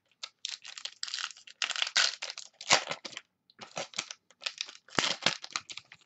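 Foil trading-card pack wrapper being torn open and crinkled by hand, in irregular bursts of crackle with a few sharper snaps.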